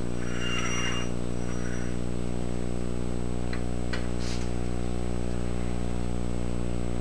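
Steady low hum with many overtones underneath. Over it, steel parallel bars scrape as they are handled in the first second or so, then give two sharp clicks about half a second apart, a little after three seconds in, as they are set down on the surface plate.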